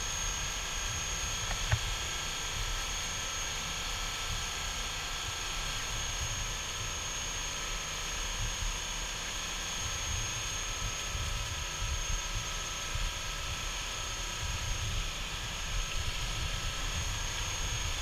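Steady drone of a cruise boat's engines with a thin high whine, over the rush of the bow wave breaking along the hull and an uneven low rumble.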